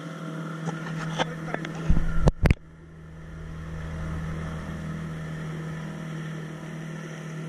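Outboard motor of an inflatable rubber boat running at a steady speed, a constant low hum. A burst of loud knocks and thumps comes about two seconds in.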